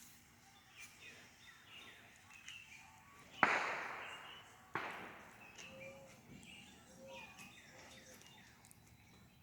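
Two sharp firework bangs about a second and a half apart, each trailing off with an echo, over birds chirping.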